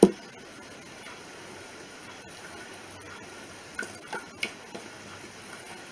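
A single knock at the start, then quiet room tone with a few light ticks and clinks about four seconds in, as the wire whisk and glass mixing bowl are handled.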